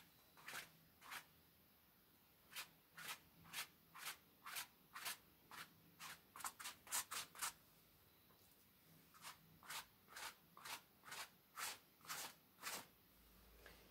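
Faint, brisk paintbrush strokes on canvas, short scratchy dabs about two a second, quickening for a moment about six seconds in. They pause briefly around eight seconds and then resume.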